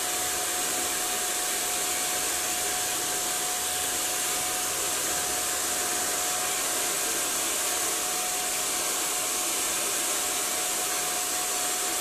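Handheld hair dryer running steadily, blowing on long wet hair: a constant rush of air with one steady whine underneath.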